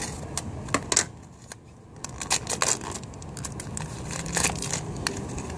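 Plastic wrapping on a toy blind basket crinkling and tearing as it is cut and pulled open, in a string of short, irregular crackles.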